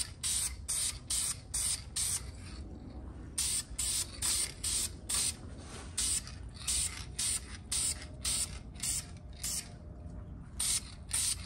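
Aerosol can of red high-temperature engine paint spraying in quick short bursts, about three a second, with two brief pauses.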